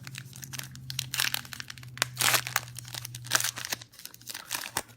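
Foil wrapper of a trading-card pack being torn open and crinkled by hand, a run of irregular crackling rustles.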